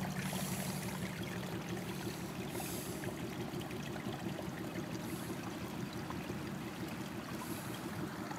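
Rainwater running steadily out of a French drain's corrugated plastic outlet pipe and across the ground in the rain. The strong flow is the sign that the drain is working properly.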